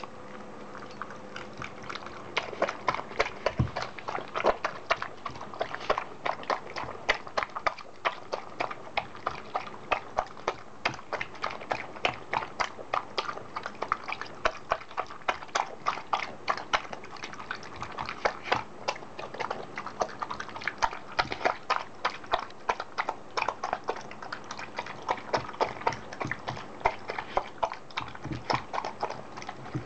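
A corgi eating sanuki udon noodles from a ceramic bowl: quick, irregular mouth smacks and clicks of teeth and tongue against the bowl, several a second.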